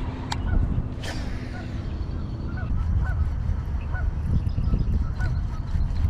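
Geese honking, a run of short calls every half second or so, over a steady low rumble.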